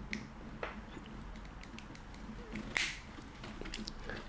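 Ganzo G105 multi-tool's serrated blade sawing at folded-over black plastic strapping, which it only cuts with effort: scattered small clicks and scrapes, with one louder scrape a little under three seconds in.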